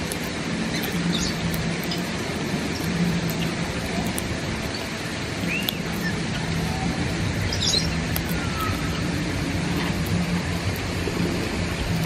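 Steady outdoor hiss with a low hum under it, and a few brief, thin bird chirps and whistles scattered through, one of them a short falling whistle.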